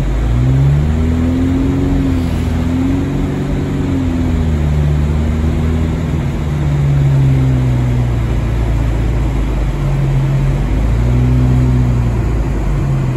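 Car engine heard from inside the cabin, its note rising and falling several times as the car pulls away and drives on, over steady tyre and road rumble on a wet road.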